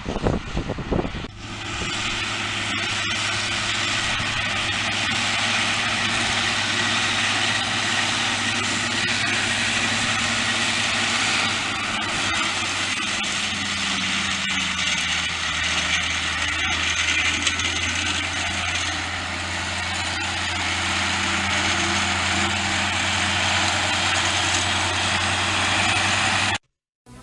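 Heavy diesel farm machinery running steadily, an even engine hum under a dense, loud hiss. It settles in after about a second of rumbling and cuts off abruptly near the end.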